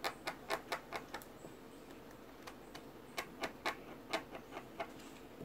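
White soft pastel stick being scraped in short strokes to shave off powder: a string of sharp scratchy clicks, a few a second, with a pause of about a second partway through.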